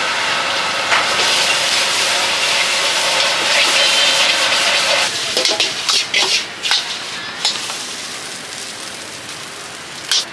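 Food sizzling in a wok over a high gas flame. About five seconds in the sizzle drops and a quick run of metal clanks follows, like a spatula striking the wok, then quieter frying with one more clank near the end.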